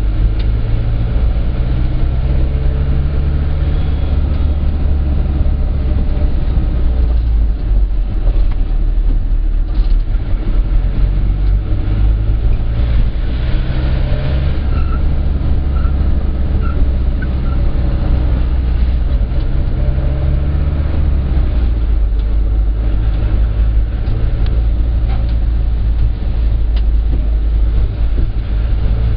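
Minibus engine and road noise heard from inside the cab while driving: a steady low rumble whose engine note shifts several times during the ride.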